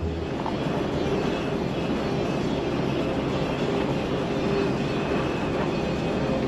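Steady road and drivetrain noise inside the cab of a motorhome cruising at highway speed, a constant rumble and hiss with a low hum.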